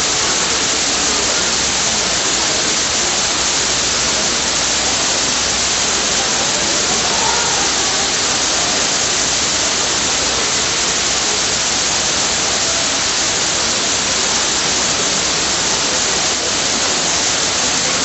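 A tall indoor waterfall, water pouring in sheets down a tiered wall into a pool, giving a steady, even rush of falling water.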